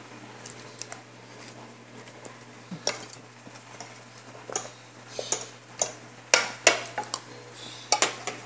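Metal fork and spoon clinking and scraping against a plate while eating: irregular short clinks, few at first and coming more often in the second half.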